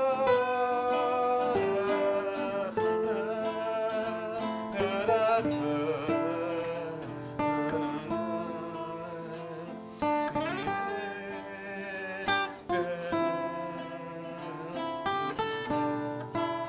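Acoustic guitar playing the instrumental close of a song, plucked and strummed, with a wavering melodic line held over it.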